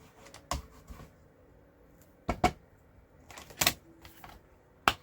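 Several separate sharp clicks and taps of stamping supplies being handled on a craft desk: a close pair about halfway through, a short cluster a second later, and one more near the end.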